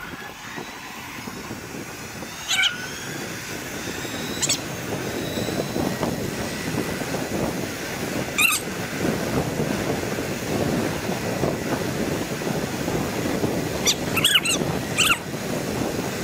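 Wind rushing over the microphone of a handlebar-mounted camera on an electric bike moving at about 22 mph, growing louder in the first few seconds as the bike speeds up. Short high chirps come through several times.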